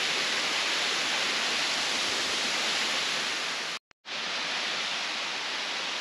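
Water rushing steadily down a 60-foot sliding cascade waterfall, an even hiss. The sound cuts out for a moment about two-thirds of the way through, then the same rush resumes.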